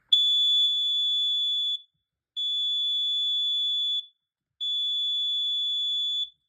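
Gas and carbon monoxide alarm sounding its test signal after its test button is pressed: three long, steady, high-pitched beeps of about a second and a half each, with short pauses between them.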